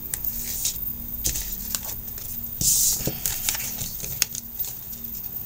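A deck of oracle cards being shuffled and handled: scattered light clicks and snaps of card stock, with one longer riffling hiss about two and a half seconds in.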